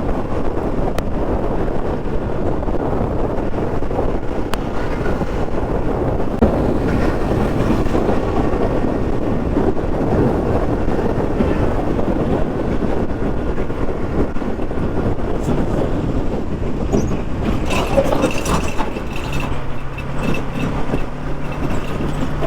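Bajaj Pulsar NS200 on the move: steady wind rush on the microphone over the engine running. A steady droning tone comes in near the end.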